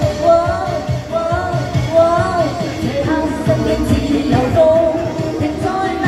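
A woman singing a Cantonese pop song into a handheld microphone over an amplified backing track with a steady beat.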